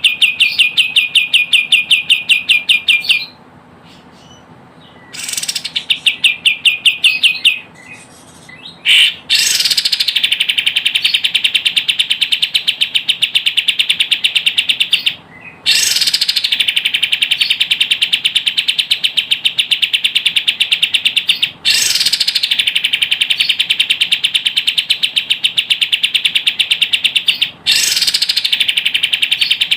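Recorded calls of the songbird known in Indonesia as kapas tembak: a loud, fast chatter of evenly repeated high notes, several a second, in long runs broken by brief gaps and a short lull a few seconds in. It is a lure track played to draw wild birds of the same kind into a trap.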